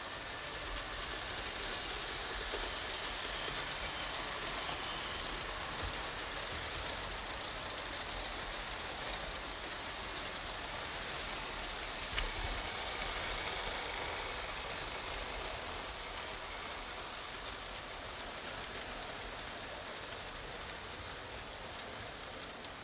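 Vintage Märklin model train running on metal M-track: a steady rattling run of wheels and motor, with a single click about twelve seconds in.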